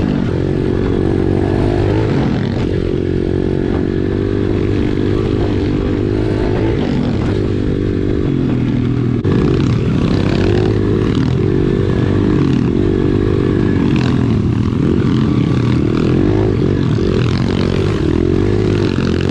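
Small single-cylinder four-stroke pit bike engine running under load on a dirt trail, heard from the riding bike itself, its revs rising and falling with the throttle. There is a cut about nine seconds in, after which it is slightly louder.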